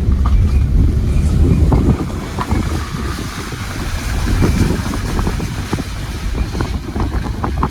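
Strong gusting wind buffeting the microphone, heaviest for the first two seconds, then easing to a lighter rush with scattered small taps.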